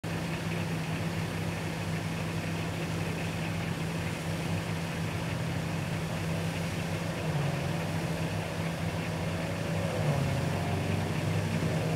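Heavy truck engine idling steadily over the continuous rush of water jetting from a sheared fire hydrant. A fainter wavering tone joins in from about seven seconds in.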